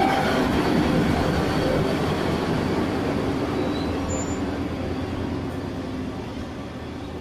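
Diesel multiple unit passenger train running past at close range, its wheel and engine noise fading steadily as the last coach moves away.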